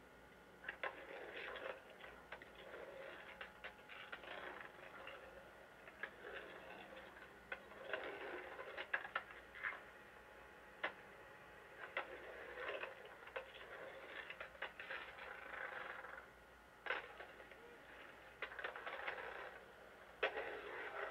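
Skateboard wheels rolling on a concrete bowl in short hazy runs, broken by a dozen or so sharp clacks of the board hitting the concrete and coping. It sounds thin and dull, played back off old videotape.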